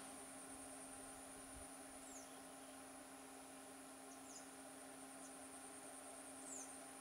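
Faint wild ambience: a steady high insect drone with a few short falling bird chirps, over a low steady hum.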